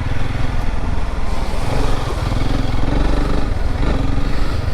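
Honda CRF300L Rally's single-cylinder engine running under varying throttle as the dual-sport bike is ridden through slippery mud.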